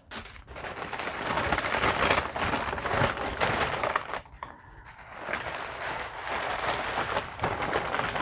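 Plastic packing material and bubble wrap being crumpled and pulled out of a shipping box, with a continuous crinkling and a short lull a little past halfway.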